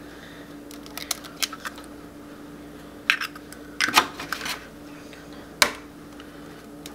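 Eggs being cracked open by hand over a frying pan: scattered clicks and taps of breaking eggshell, the sharpest crack about five and a half seconds in.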